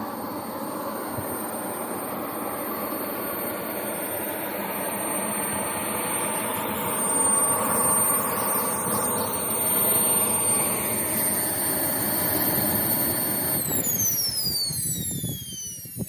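Radio-controlled model jet's engine running as the jet taxis closer, a rushing exhaust with a thin high whine that grows louder. About 14 s in the engine is shut down and the whine glides steeply down as it spools down, while the rushing noise fades away.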